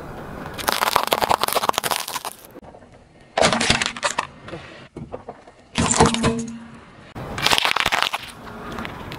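A car tyre rolling over small objects on asphalt and crushing them: four separate bursts of cracking and crunching with short pauses between, the first as hard candy canes snap under the wheel.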